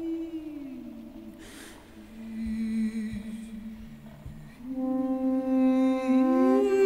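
Live ensemble music of long held notes that slide in pitch. A note glides down within the first second and settles into a low held tone. About two-thirds in, a louder, brighter note enters and slides upward near the end.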